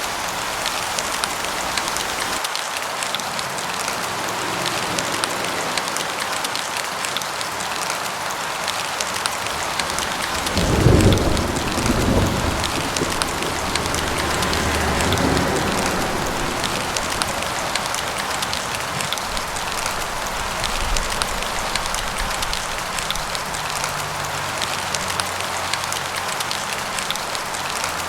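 Steady rain pattering. About eleven seconds in, a thunderclap breaks into a low rumble that rolls on for several seconds.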